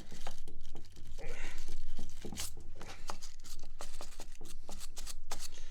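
Handling noise from the grimy parts of an old leg vise: irregular scrapes and clicks over a steady low hum.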